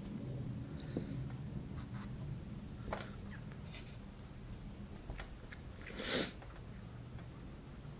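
Quiet room tone with a steady low hum, a few faint small taps, and one short breathy hiss about six seconds in.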